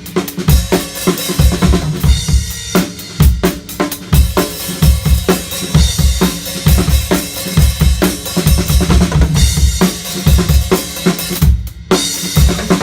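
Natal Ash drum kit played continuously: bass drum, snare and cymbals in a busy pattern, with a brief stop about a second before the end.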